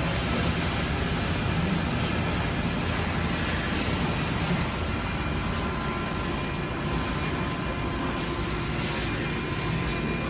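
Machine-shop machinery running steadily: a continuous mechanical noise with a low hum.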